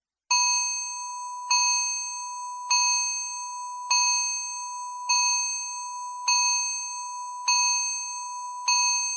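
Countdown timer alarm going off when the time runs out: a bell-like alarm tone struck about every 1.2 s, eight times, each ring fading slightly before the next. It starts suddenly out of silence just after the beginning.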